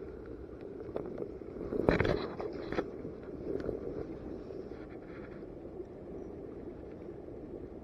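Steady rushing of a small burn's running water, with a few knocks and scrapes about two to three seconds in.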